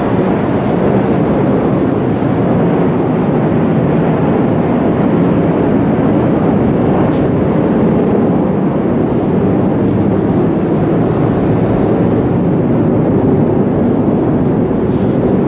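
Steady, even background noise that does not change, with faint short scratches of a marker on a whiteboard now and then.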